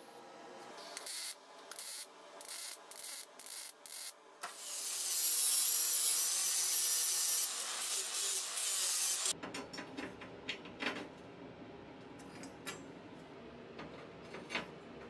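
Short crackling bursts of MIG tack welds on steel square tube, then an angle grinder with a sanding disc grinding the welds down, a loud steady hiss with a high whine for about five seconds that cuts off abruptly. After it come light clicks and knocks of metal pieces being handled.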